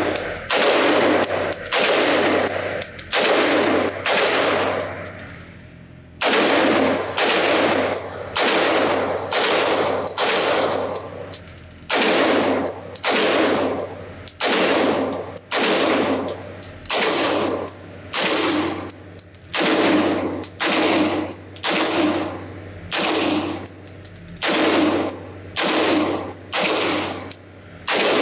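Springfield Armory Saint AR-15 in 5.56 NATO fired semi-automatically in a steady string of single shots, roughly one every three-quarters of a second. Each shot rings with an echo off the walls of an indoor range. A pause of about a second comes about five seconds in.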